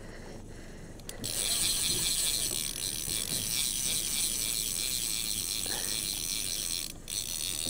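Fishing reel's ratchet clicker buzzing in a fast, even run of clicks while a fish is being played, starting about a second in, with a brief break near the end.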